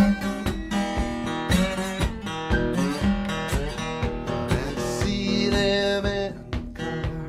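Background music: a guitar-led song with strummed guitar and a steady beat.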